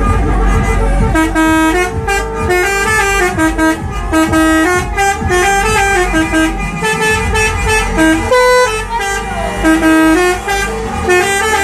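Indonesian 'telolet' musical bus horn playing a continuous melody of quick stepped notes, with a low rumble underneath.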